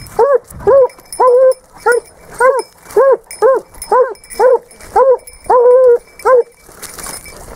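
Spanish hound (sabueso español) baying as it works a wild boar's scent trail: a steady run of short, arched yelps, a little over two a second, breaking off about six and a half seconds in.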